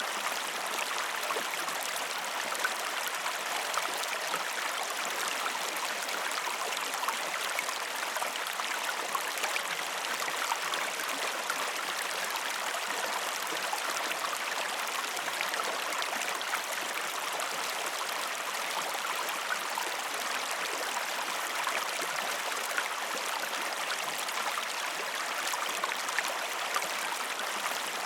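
Waterfall water rushing and splashing steadily, a continuous even hiss sprinkled with small splashes.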